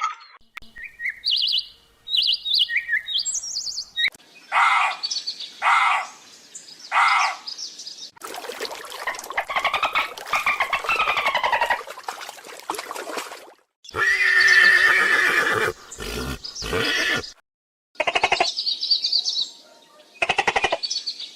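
A string of different animal calls cut one after another: small high chirps first, then short calls, then a long horse whinny in the middle, followed by several louder calls near the end.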